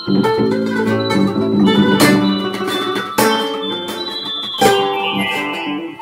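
Classical guitar playing an instrumental piece: chords struck a few times, each let ring into the next.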